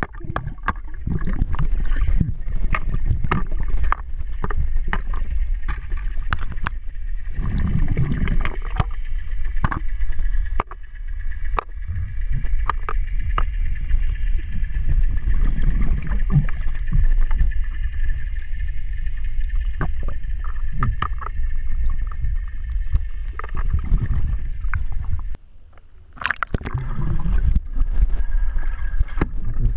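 Muffled underwater sound through a waterproof camera housing: low rumbling water movement with many small knocks and clicks as hands move toys against the housing and pool floor, and a faint steady whine through much of it.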